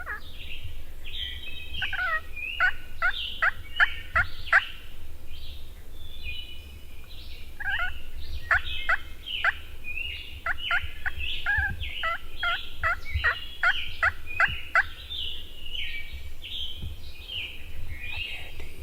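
Wild turkey yelping: two runs of about eight short, sharp notes at roughly two to three a second, one near the start and a longer one in the middle. Songbirds chirp throughout.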